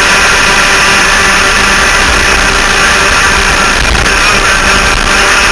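An enduro laydown kart's twin 100cc two-stroke engines running hard at high revs, heard onboard as a loud, steady buzz of several engine tones.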